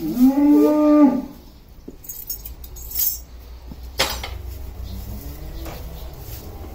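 A single drawn-out call from a voice, about a second long, rising then falling slightly in pitch. It is followed by a short high clink about three seconds in and a sharp knock a second later, over a low steady hum.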